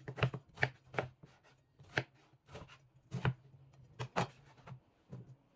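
Chef's knife chopping peeled aubergine into cubes: a run of uneven knocks, a few a second, as the blade cuts through the flesh and strikes the cutting board.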